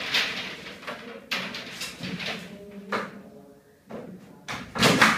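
Coil of PEX underfloor-heating pipe being handled and unrolled: irregular rustling swishes and knocks as the plastic pipe slides and drags over foil-faced insulation board, the loudest near the end.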